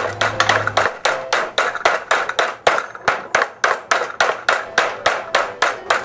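Hammer striking the edge of a galvanized steel sheet in a quick steady rhythm, about four blows a second, bending the lip over to curl the sharp edge.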